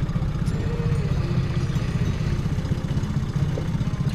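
Small outboard motor pushing an inflatable dinghy, running steadily with an even low pulsing.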